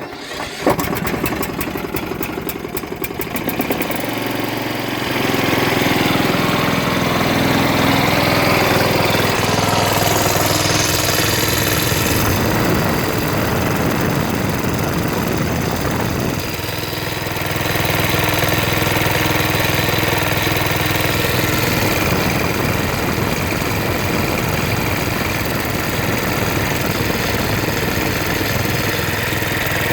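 Kohler Courage 20 hp engine of a Husqvarna riding mower, cranked by the starter and catching within the first few seconds, then running steadily. Its engine block is cracked, so the cylinder and head move with every piston stroke.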